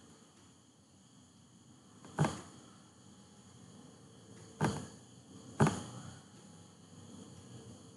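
Computer mouse clicking: three sharp clicks against a quiet room, the first about two seconds in and the last two about a second apart.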